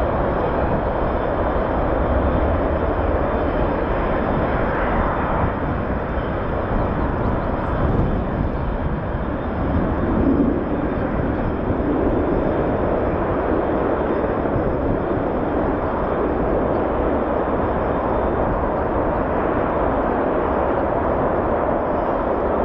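Twin-engine military jet fighters taking off in a group, their engines at takeoff power making a loud, steady, unbroken jet noise that sits mostly in the low and middle range.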